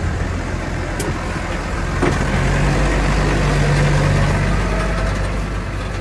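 Farm tractor's diesel engine running steadily as the tractor drives past close by, swelling a little midway and easing off toward the end.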